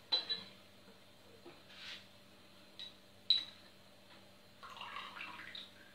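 Light kitchen handling sounds: a few sharp clinks of a metal spoon against glassware and a saucepan, two of them briefly ringing, with a short rustle of handling near the end.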